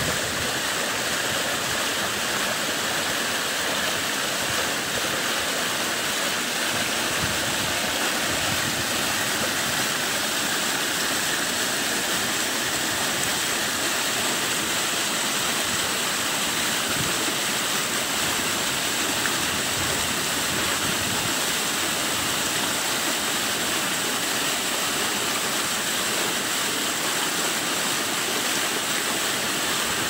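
Water rushing and splashing as it pours over a rock ledge in a small stream cascade, a steady close-up rush.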